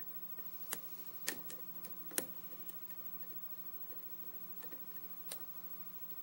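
Lock pick and tension wrench working the pin stacks of a 5-pin Schlage lock cylinder during single-pin picking: a handful of small, sharp metallic clicks and ticks at irregular intervals, the loudest about two seconds in, over a faint steady hum.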